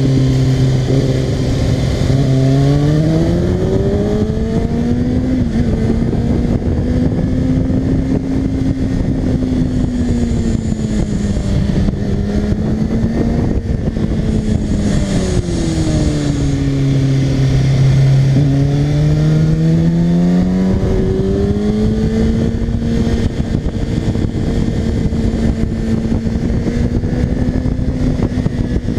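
Kawasaki ZX-6R 636 inline-four engine running under way. Its note starts low, climbs over several seconds and holds, dips again about halfway through, then climbs and holds steady, over a rush of wind.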